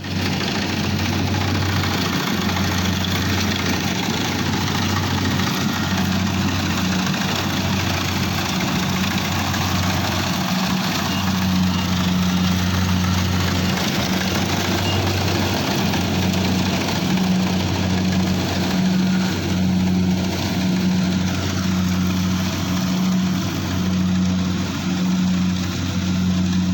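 Engine of a rice harvesting machine running steadily at an even speed: a constant low drone under a wide mechanical noise.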